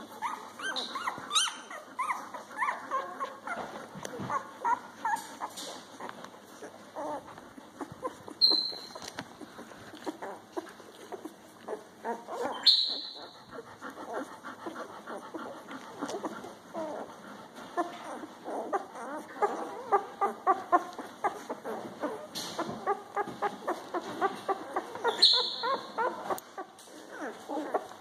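A litter of young puppies nursing, making a steady stream of little squeaks, grunts and whimpers. Three brief, sharper high squeals stand out, the loudest about halfway through.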